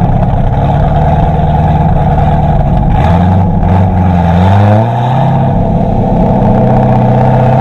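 C6 Corvette V8 running through a Billy Boat PRT axle-back exhaust with quad tips, heard from behind the car while driving. A steady cruising note rises in pitch about four seconds in as the engine pulls, eases back about a second later, and settles into a steady drone.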